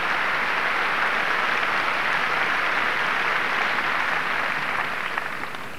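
Large crowd applauding, a steady dense clapping that dies away near the end.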